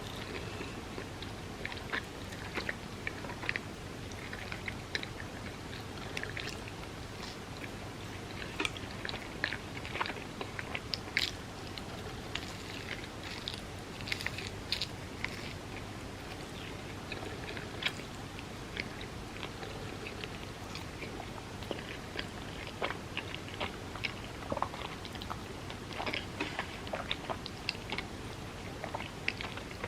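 A person biting and chewing food close to the microphone, with many short, irregular wet mouth clicks.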